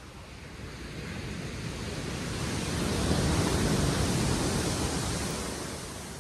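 Sea surf on a shingle beach: one wave surges in, the noise swelling to a peak about three seconds in and then falling away.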